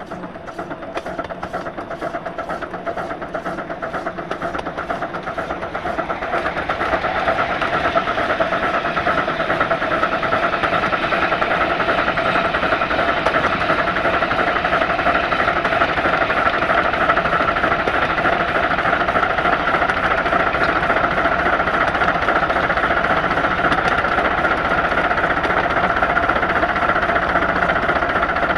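Miniature ride-on steam locomotive running, filmed from low on its side, with a rapid regular exhaust beat. The beat quickens and grows louder over the first several seconds as the engine picks up speed, then holds steady.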